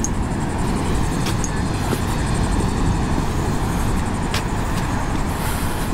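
Wind buffeting the microphone over the steady rush of rough ocean surf.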